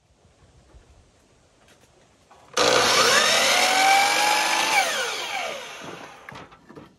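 Electric miter saw started abruptly about two and a half seconds in. Its motor whine rises to full speed as the blade comes down through a wooden board, then falls away as the blade spins down near the end.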